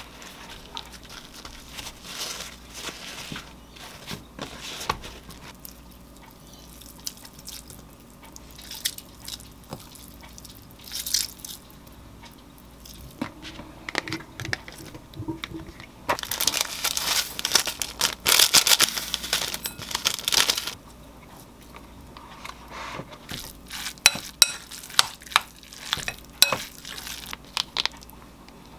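Food-prep handling sounds: soft rustling of a paper towel as tofu is pressed and crumbled, then a few seconds of dense crackling rustle past the middle, and sharp clicks of a metal spoon against a glass mixing bowl near the end as tofu and konjac rice are stirred together.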